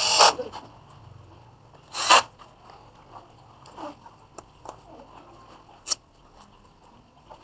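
Gloved hands handling a plastic security camera and its wall mount: two short scraping rustles, at the start and about two seconds in, then several light clicks of plastic parts.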